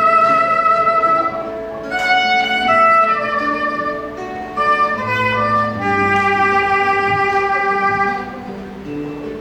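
Instrumental music: a single melody of held notes moving step by step over a plucked or strummed accompaniment.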